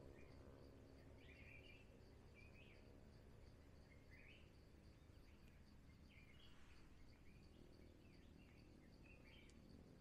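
Faint songbird calls: short chirps about once a second, over a steady high insect drone.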